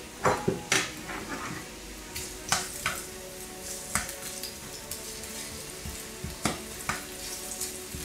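Sliced onions sizzling in hot olive oil in a non-stick frying pan, with a plastic slotted spatula knocking and scraping against the pan as they are stirred, in short clusters of clacks every second or two. The oil is hot enough to fry the onions.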